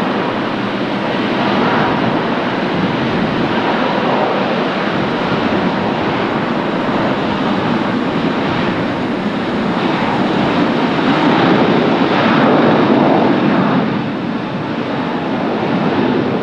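Jet airliner engines, a loud steady rush that swells to its loudest about three-quarters of the way through, then eases off.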